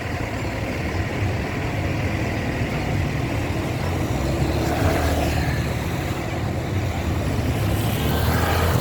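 A bus's engine rumbling as it draws closer on the road, growing steadily louder, with tyre and traffic noise.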